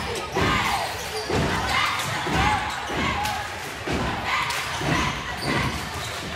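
A basketball being dribbled on a gym floor, bouncing about once or twice a second, with voices echoing in the hall.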